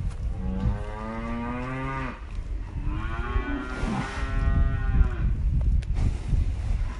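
A cow mooing twice, each a long drawn-out call, the second a little longer, over a steady low rumble.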